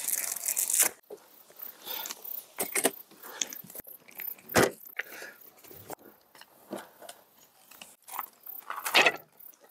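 Camping gear being unpacked and set up: a fabric carry bag rustling for about a second at the start, then scattered clacks and knocks as folding wooden-framed camp chairs and a wooden folding table are opened, with a sharp knock about halfway through and a cluster of clatter near the end.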